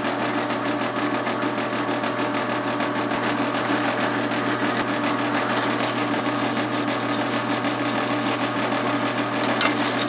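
Electric drill motor running steadily at speed, with an even whirring hum, working a wooden dowel bushing.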